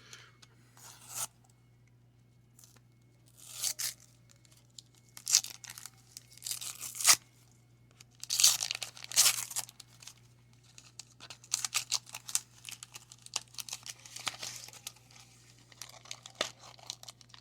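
Wax-paper baseball card pack being torn open and crinkled by hand, in irregular bursts of tearing and rustling.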